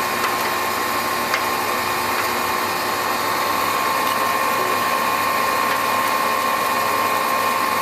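A 15-inch Clausing-Colchester lathe running with the carriage power feed engaged at a higher feed rate: a steady mechanical whir of the headstock and feed gearing with a constant high-pitched whine.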